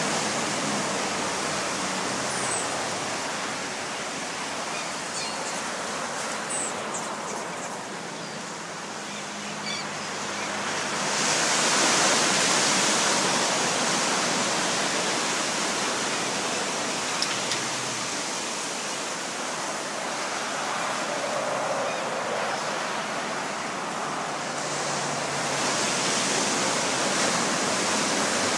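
Ocean surf washing steadily onto the shore, swelling louder twice as waves break, about a third of the way in and again near the end.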